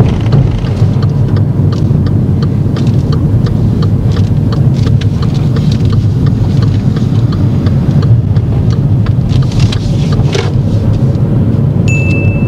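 Inside a moving car: a steady rumble of road and engine noise, with the turn indicator ticking at an even pace for a right turn at a roundabout. A short high beep sounds just before the end.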